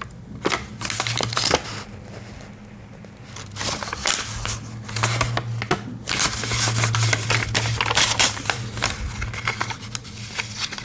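Close handling noise: a run of small clicks, taps and rustles from hands handling small objects and paper, thinner for a moment and then denser and louder in the second half, over a steady low hum.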